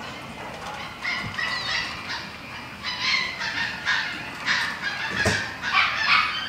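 Animals in a pet shop calling: a string of short, high-pitched calls, some overlapping, from about a second in to near the end.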